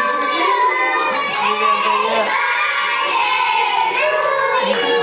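A group of children singing together, with some shouting voices mixed in.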